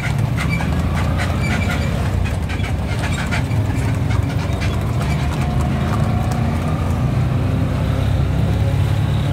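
Horse's hooves clip-clopping on the road alongside, over the steady drone of a moving auto-rickshaw's engine; the hoof clicks thin out after about three seconds.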